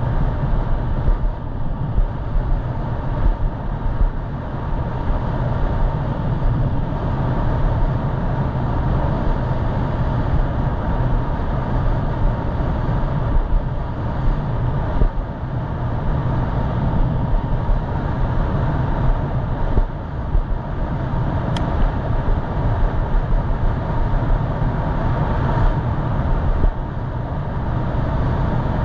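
Wind buffeting the microphone of a head-mounted action camera while riding an e-bike, a steady rumble with gusty flutter, under a faint steady tone. A single sharp click sounds about three quarters of the way through.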